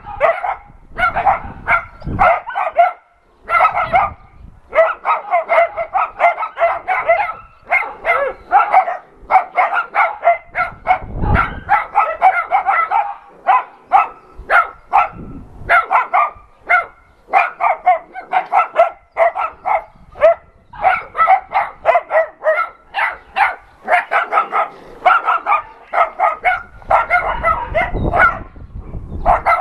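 A group of young shelter dogs barking together, short barks overlapping almost without pause, with only brief gaps.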